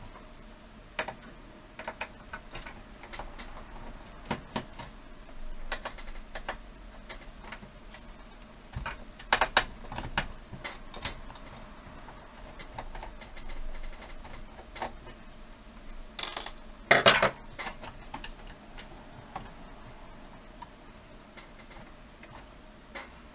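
Scattered small clicks and taps of hands and tools working on a VCR deck's metal chassis during dismantling, with a cluster of clicks about nine seconds in and a louder clatter about seventeen seconds in.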